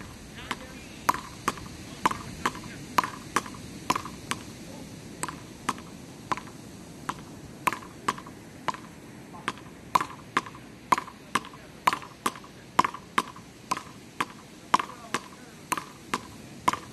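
Wooden palas (beach paddles) striking a small ball in a fast, continuous rally: sharp clacks, about two to three a second, each with a short ringing note.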